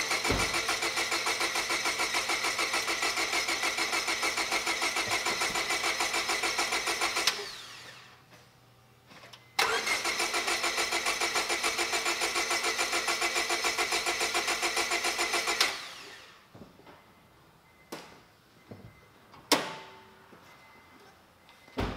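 Honda Civic four-cylinder engine cranked on the starter twice, about seven and six seconds each, a fast even chugging that winds down both times without the engine catching: a crank-no-start, which the mechanic puts down to the camshaft position sensor left unplugged. A few clicks and knocks follow near the end, like the car door.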